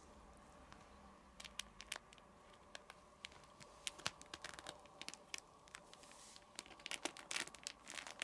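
Crinkly 'shaka-shaka' cat toy rustling in short, irregular crackles as a kitten plays with it, busiest near the end.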